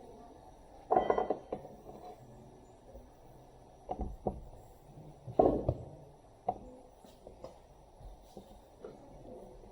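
Steel tyre levers knocking and scraping against a Honda ATC70's steel wheel rim as the lever is worked in under the tyre bead. There are several separate metallic clanks; the first, about a second in, rings briefly, and the loudest comes about halfway through.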